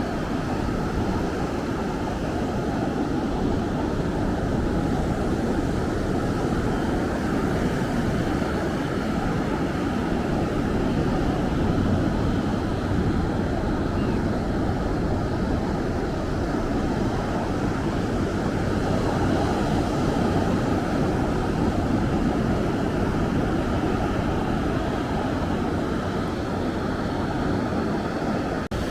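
Steady, rumbling wash of ocean surf breaking along a sandy beach, swelling and easing slowly.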